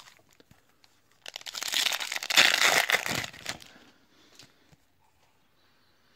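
Foil wrapper of a trading-card pack crinkling and tearing as it is opened, a burst of rustling lasting a couple of seconds starting about a second in. Faint clicks of cards being handled come before and after.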